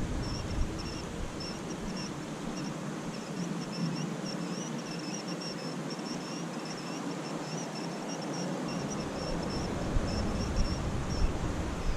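Insects chirping in a steady, rapid string of short high-pitched pulses over an even outdoor hiss, with a low rumble coming in about three-quarters of the way through.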